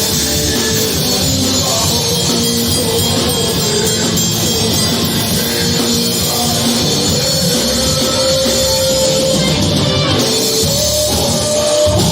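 Rock band playing a song loud, with drums and electric guitar; a long held note comes in about two-thirds of the way through.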